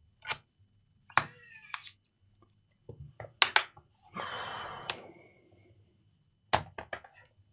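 Laptop parts and tools being handled on a workbench during hinge repair work: several sharp clicks and knocks, one a little over a second in followed by a brief ring, and a scrape lasting about a second around the middle.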